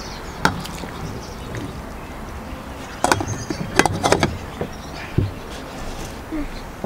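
Scattered knocks and clinks of kitchenware being handled, with a cluster of them about three to four seconds in, over a steady background hum.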